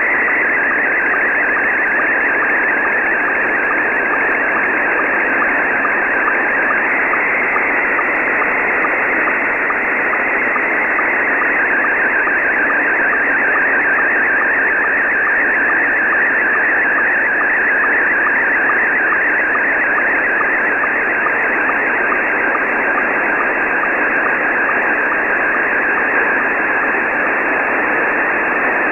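Slow-scan television (SSTV) picture signal from a pirate shortwave station, heard in lower sideband on an Icom IC-R9500 receiver. It is a steady, high warbling tone that wavers in pitch as each image line is sent, very weak and buried in shortwave band hiss.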